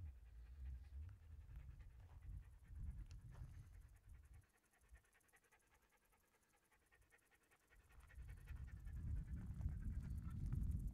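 Faint panting breaths over a low rumble of wind buffeting the microphone, dropping to near silence for a few seconds in the middle before the rumble returns.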